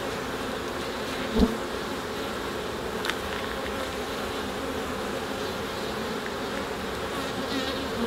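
Honey bee colony humming steadily from an opened hive full of bees. A single sharp knock sounds about a second and a half in, with a lighter click near three seconds.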